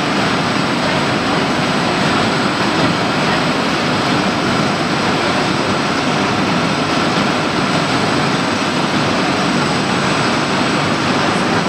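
Waste-to-oil plant machinery running: a loud, steady, even mechanical noise with a faint high whine, from the electric motor and pump unit and the equipment around it.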